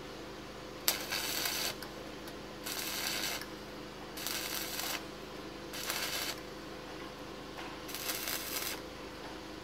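Stick arc welding on a steel exhaust pipe: the arc crackles and sizzles in five short bursts, each under a second, with brief pauses between them, over a steady low hum.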